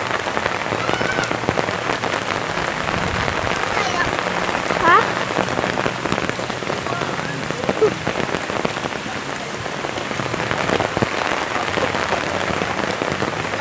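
Steady rain falling, a dense, even patter of drops. A brief squeaky sliding tone sounds about five seconds in.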